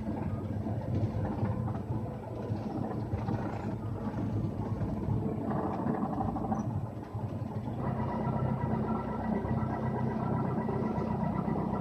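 A Cessna 172's piston engine running at low power on the ground, heard from inside the cockpit. About eight seconds in, a steady higher-pitched tone joins it.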